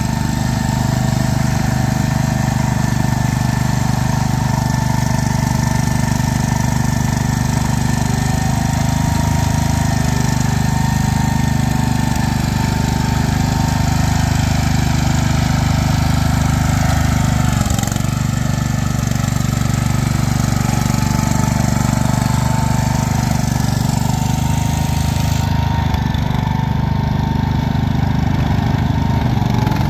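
Wheel Horse garden tractor engine running steadily as it drives through deep mud, with a brief dip in pitch about 18 seconds in.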